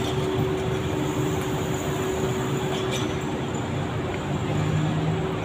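Urban street traffic: a steady mix of car and motorcycle engines and tyre noise, with a constant low hum underneath.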